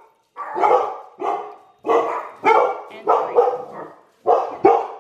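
Pet dogs barking repeatedly, about seven loud barks in a row with short gaps between them.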